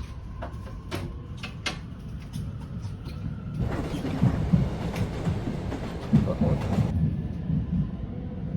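Low rumble of a moving vehicle heard from inside, with a few light clicks in the first two seconds and a louder rush of noise from about three and a half to seven seconds in.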